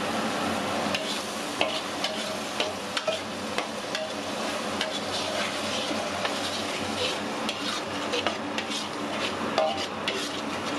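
Ground spice paste frying in a wok with a steady sizzle, stirred and scraped with a metal spatula. The spatula makes frequent irregular clicks and scrapes against the pan.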